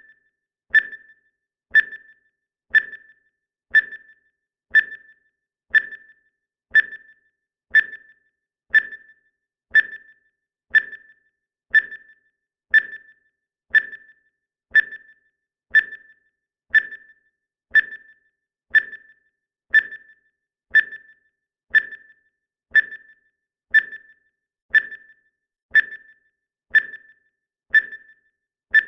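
Countdown timer sound effect: a short, high electronic beep once every second, each one dying away quickly, marking off the seconds of the count.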